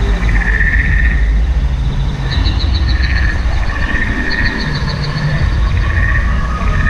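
Repeated frog-like chirping calls with quick rattling trills, over a steady low rumble.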